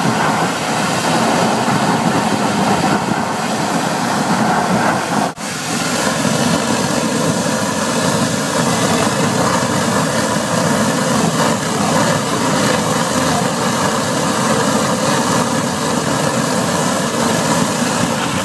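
Water jetter (US Jetter, 18 gpm) running steadily under load while high-pressure water drives the Warthog root cutter through the sewer line, with water gushing out of the opened pipe. The sound breaks off for an instant about five seconds in.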